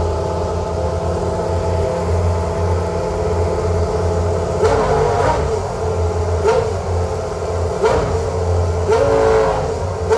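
Minardi Formula One car's engine idling, with four short throttle blips in the second half.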